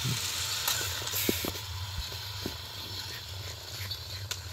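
Two battery-powered toy train engines coupled together on plastic track, their small motors and gears running with a steady whir and scattered clicks and rattles.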